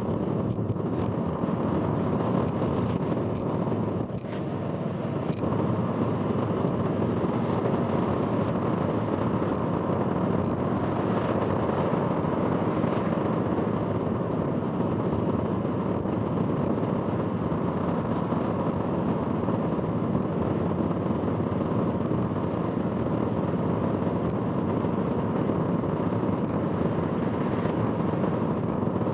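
In-car driving noise of a car on an expressway, played back at four times speed: a steady rush of road, tyre and engine noise with scattered short clicks. It carries the loud abnormal noise that the uploader warns about.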